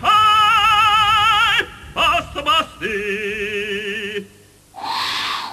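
A voice singing in operatic style with a wide vibrato: a long held note, a few short notes, then another held note, with a short breathy sound sliding down in pitch near the end.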